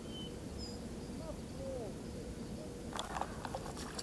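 Short bird chirps over a steady outdoor background; about three seconds in, a run of splashing and sharp clicks begins.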